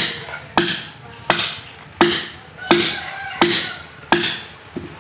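Steady repeated heavy blows of a hand tool struck into wood, about seven in a row, roughly two-thirds of a second apart, each a sharp crack with a short ringing decay; the last blow near the end is weaker.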